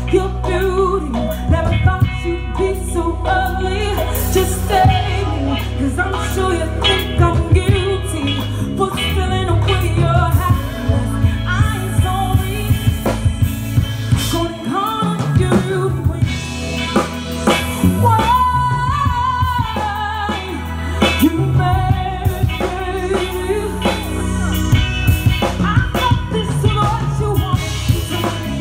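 A woman singing live into a microphone over amplified pop-soul backing music with drums and bass.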